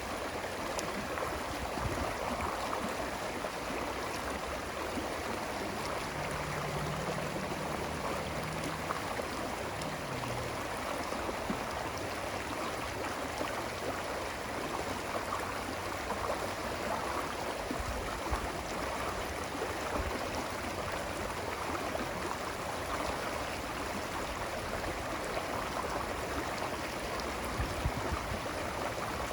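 Running water flowing steadily, an even rushing sound like a stream.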